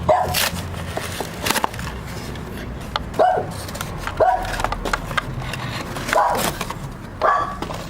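A toy's cardboard and plastic packaging being handled and pulled at while it is being opened: a few sharp knocks and scrapes, with short snatches of voices.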